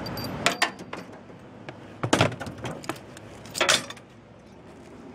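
Sharp knocks and rattles from a strapped-down truck load of scrap metal in plastic bins being jostled, in three short clusters about a second and a half apart.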